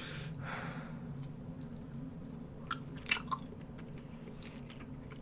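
Close-up mouth sounds of chewing a bite of pernil (roast pork shoulder), with a few sharp wet clicks and smacks about three seconds in.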